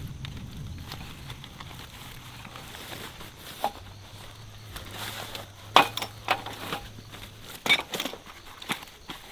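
Scattered sharp clicks and knocks, a few with a brief ringing, coming irregularly in the second half, over a faint low hum.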